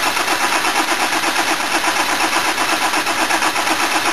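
Starter motor cranking a Land Rover 200Tdi four-cylinder diesel in an even rhythm of about five beats a second, turning it over without it firing.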